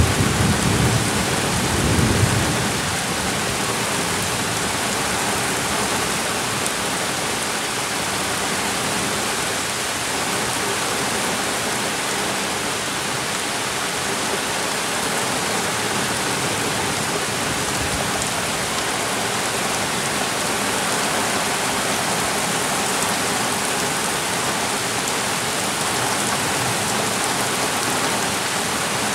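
Torrential thunderstorm rain, a steady dense hiss of downpour with raindrops striking the microphone. A low rumble of thunder fades out in the first couple of seconds.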